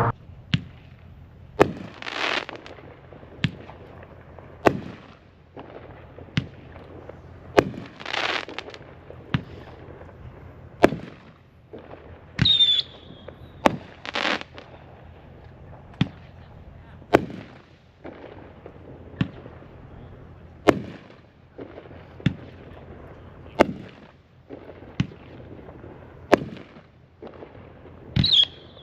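Chain Lightning consumer firework going off: a long string of sharp bangs roughly every second or so, several of them trailed by about a second of crackling hiss. A short falling whistle sounds twice, near the middle and near the end.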